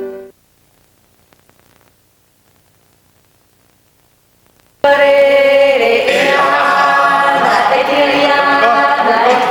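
Instrumental music fades out at once, a quiet pause follows, then about five seconds in a group of voices starts singing a chant-like choral song, sudden and loud.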